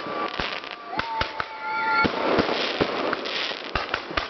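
Fireworks going off: a rapid run of sharp bangs over steady crackling, with a thin whistle lasting about a second near the start.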